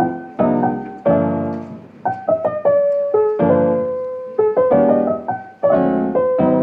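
Background piano music: chords and single notes struck a few times a second, each fading away.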